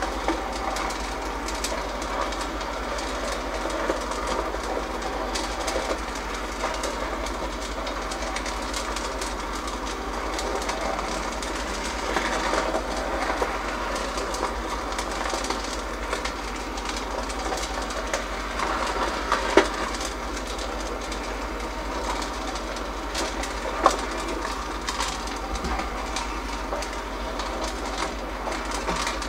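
West Bend Stir Crazy popcorn popper running: its motor turns the stirring rod, which sweeps unpopped kernels around the heating plate with a steady clattering rattle over a low hum, and a couple of louder clicks. The kernels are still heating up and have not begun to pop.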